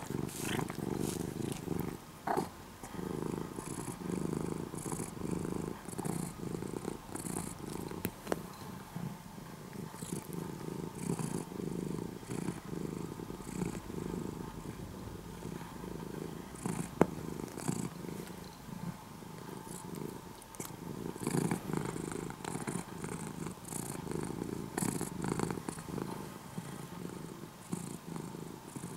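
Domestic cat purring steadily at close range, with short scratchy sounds over it and one sharp click about seventeen seconds in.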